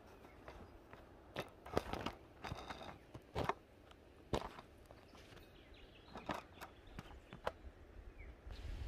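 Hand pruning shears snipping rose stems: a run of short, sharp snaps and clicks with handling of the stems between cuts.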